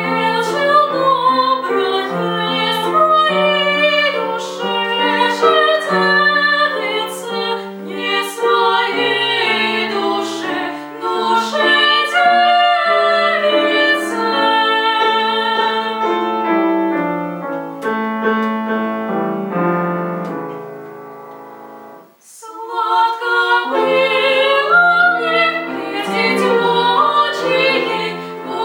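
Classically trained female voice singing a Russian romance with piano accompaniment. About 22 seconds in the music dies away to a brief pause, then voice and piano resume.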